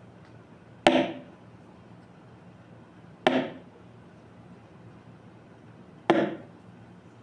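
Three sharp hits, each dying away within about half a second, a couple of seconds apart.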